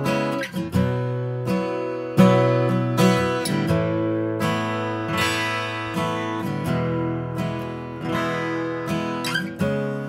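Taylor 110 steel-string acoustic dreadnought guitar played unaccompanied: chords strummed about once a second, each left to ring into the next.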